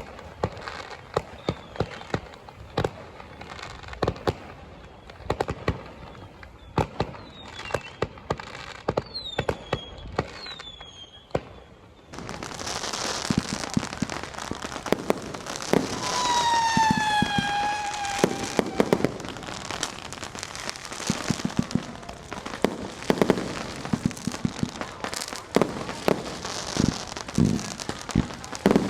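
Fireworks and firecrackers going off in a continuous barrage of sharp bangs and pops, with a few short whistles falling in pitch. About twelve seconds in, it suddenly turns louder and denser into a thick crackle, and a loud whistle sliding down in pitch follows a few seconds later.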